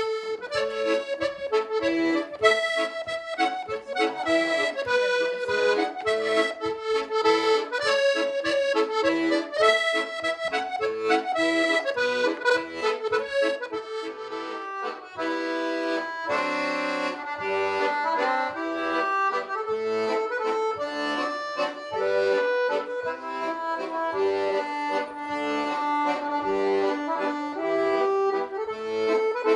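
Accordion playing a traditional tune, a quick run of changing notes over held chords.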